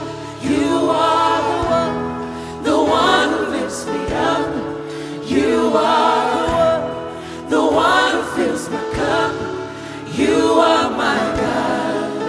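Church worship band and singers performing a gospel worship song: sung phrases over sustained instruments, with a low drum beat about every two and a half seconds.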